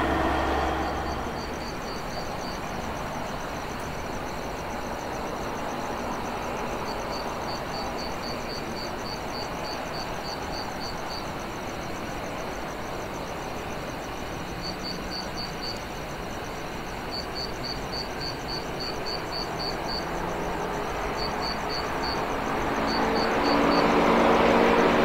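A passing train's noise fades over the first two seconds, leaving a steady outdoor rumble with groups of rapid, evenly spaced high chirps, insect-like, coming and going. Near the end an engine hum rises as another vehicle approaches.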